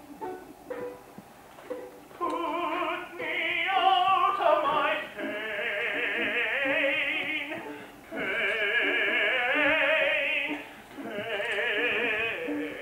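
Operatic singing with wide vibrato over instrumental accompaniment, coming in loudly about two seconds in and holding long notes in three phrases.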